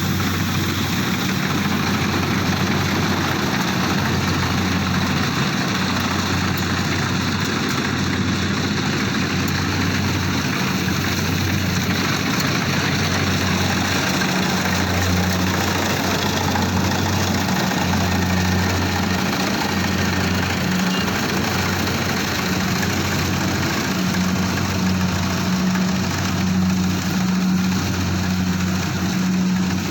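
Engine of a rice-cutting machine running at a steady speed with a constant low hum.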